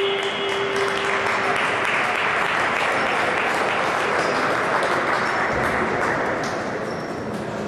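An arena horn sounds a steady tone and cuts off about a second and a half in, as the period ends. Applause and cheering from the crowd follow and ease off slightly near the end.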